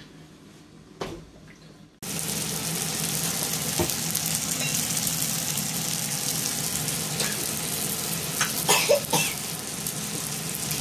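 Pork belly slices sizzling on the grill plate of an electric hotpot-and-grill, a steady hiss that starts suddenly about two seconds in, with a few light knocks near the end.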